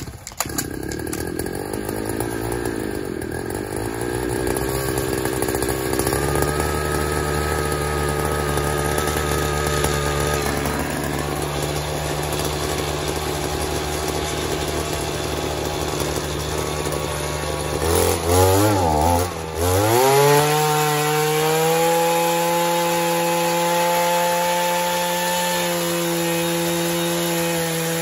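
Gas-powered handheld earth auger running as it bores a post hole in the ground. About two-thirds of the way through, the engine speed swings down and up, then settles into a steady, higher-pitched run.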